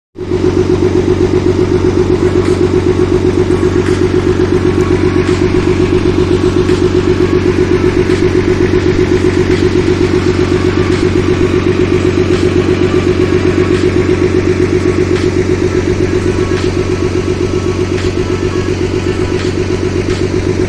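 Tractor diesel engine idling steadily with an even, rapid chug.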